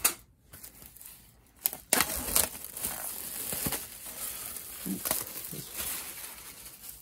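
Plastic shrink wrap crinkling and tearing as it is peeled off a hardback book. A few sharp crackles come first, then from about two seconds in it crinkles continuously.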